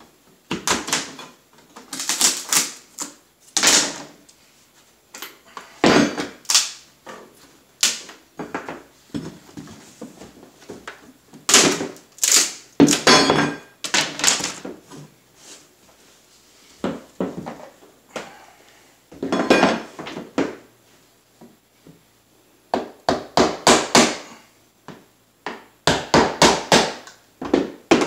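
Flat pry bar levering and scraping cut strips of 3/8-inch engineered hardwood flooring out of the floor, with the loose wood pieces knocking and clattering on the boards in irregular clusters. Near the end there is a quick run of evenly spaced knocks as a mallet comes into use.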